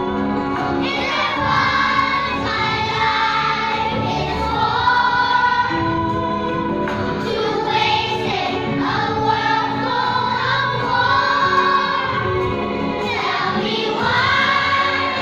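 A choir of young children singing a song together in unison.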